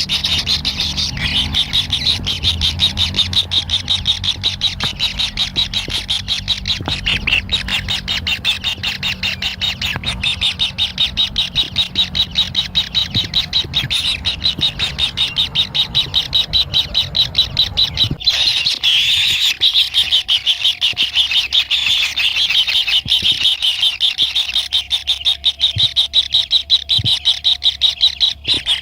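Kingfisher chicks calling to beg for food, a continuous fast stream of high, rapidly repeated calls. A low background rumble underneath stops abruptly about two-thirds of the way through.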